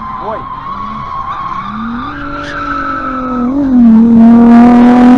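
A car drifting: its tyres squeal with a steady high whine while the engine revs hard. The sound grows loudest near the end as the engine is held high amid a rush of tyre noise, then cuts off suddenly.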